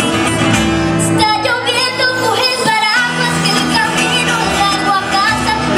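Live acoustic song: two acoustic guitars playing together under a young singer's voice, which holds a wavering, gliding melodic line without clear words.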